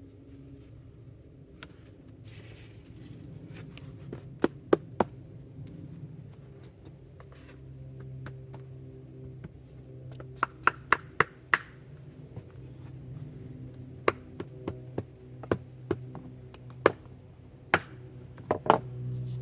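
Sharp wooden knocks and taps from wood pieces being handled and set together during a glue-up. They come in irregular groups: three close together, then a quick run of about six, then scattered single taps, over a low steady hum.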